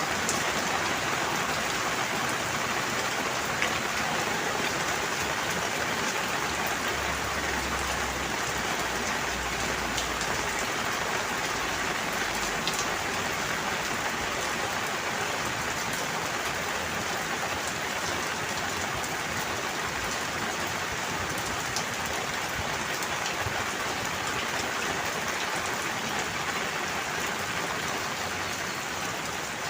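Steady rain falling, a continuous even patter with scattered individual drop ticks.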